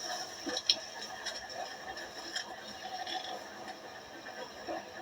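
London Underground train running, heard from inside the carriage: a steady hum with a few sharp clicks, the loudest about a second in.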